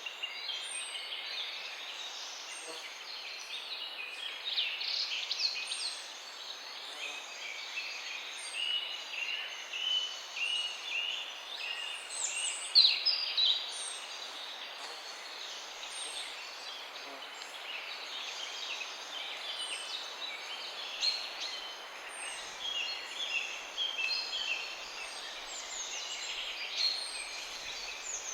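A chorus of many birds chirping and calling over one another, over a steady background hiss. A short high note repeats about every second and a half.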